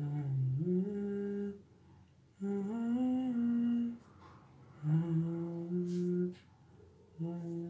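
A man humming a slow tune in short phrases of about a second and a half each, with brief pauses between; the notes are held and step up and down in pitch.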